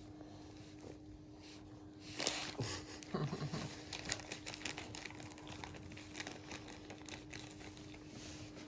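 Wipes or tissue crinkling and rustling as they are handled to clean a puppy, in a quick irregular run of crinkles that starts about two seconds in.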